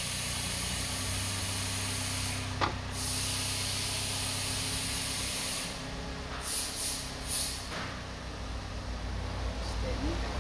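Steady high-pitched hiss over a low hum, broken once by a sharp click about two and a half seconds in; after the middle the hiss stops and a few short hisses follow.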